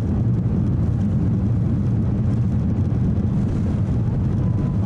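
Steady, deep cabin rumble of an Airbus A350-900 rolling on the ground, its Rolls-Royce Trent XWB engines and wheels heard as one even drone from inside the cabin.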